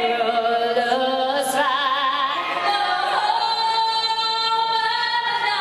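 A woman singing the national anthem solo, her voice wavering with vibrato, holding one long high note through the second half.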